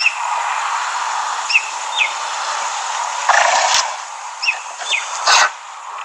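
Wild bird calls: short chirps in pairs every few seconds over a steady outdoor hiss. Two louder rushing noises come in, one about three and a half seconds in and one just before the end.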